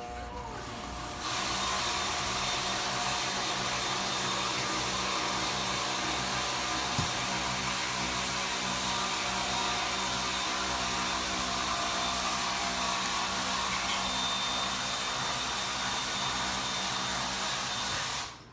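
Variable-speed lathe spinning an RC car wheel with a GRP tire at high speed for a ballooning test: a steady motor whine with a rushing hiss. It steps up in level about a second in and cuts off suddenly just before the end.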